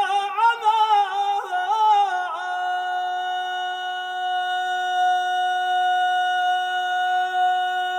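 A man chanting an unaccompanied Yemeni devotional tasbih: an ornamented phrase that wavers in pitch for about two seconds, then one long held note.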